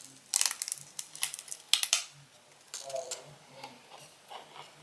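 Sharp clicks and taps of small hard phone parts and tools being handled on a work surface, several in quick succession in the first two seconds, then a few softer ticks.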